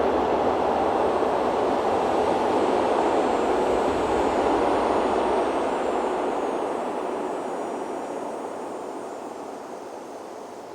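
Strong wind rushing over the drone-mounted camera's microphone as a small FPV drone flies into a gale: a steady noisy roar with a faint high motor whine, gradually fading over the second half.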